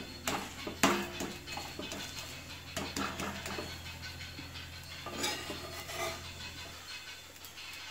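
Steel spatula scraping and clicking against a cast-iron dosa tawa as a dosa is lifted and turned, with a few sharp clicks in the first second and more about five to six seconds in.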